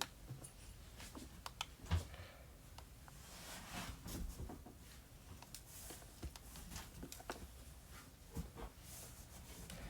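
Faint scattered clicks and small handling noises of the M.2 heatsink being worked loose and taken off a motherboard, with a sharper click about two seconds in and another near the end.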